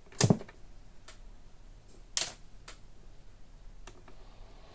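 Front-panel switches and controls of a Unitra Diora Śnieżnik R 502 radio being pressed and turned: a sharp loud click near the start and another about two seconds in, with a few fainter clicks between and after.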